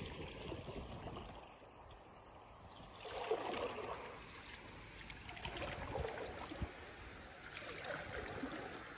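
Kayak paddle strokes: the blades dip and pull through calm river water, swishing and dripping about every two seconds from about three seconds in.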